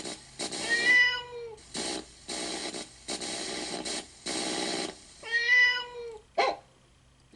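Yamaha PSR-E273 keyboard playing its built-in sound-effect samples one key at a time: a run of short bursts of noise, each about half a second, with a cat meow about a second in and another about five seconds in, then a brief sharp sound near the end.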